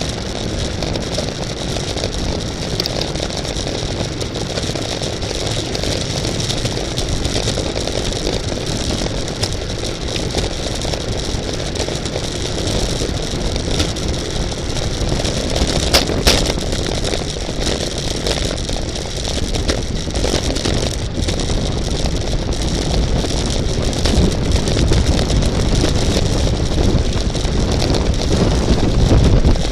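Steady wind rush and road noise from riding a road bike at race speed, strongest at the low end, with a sharp click about halfway through.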